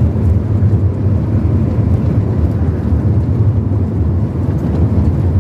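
Steady low rumble of a vehicle driving at speed along a highway: road and wind noise.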